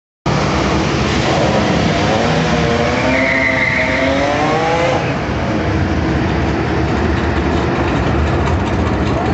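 Drag race cars' engines running at the start line, a loud steady rumble and hiss, with a wavering pitched sound in the middle seconds.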